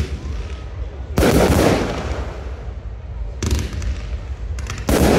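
Fireworks bursting: three loud bangs, about a second in, midway and near the end, each trailing off in a long rumbling echo, with smaller cracks between.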